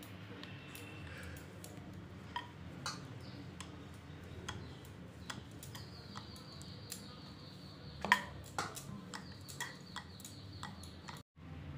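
Rolling pin rolling out dough on a board: light, irregular clicks and knocks of the pin against the board.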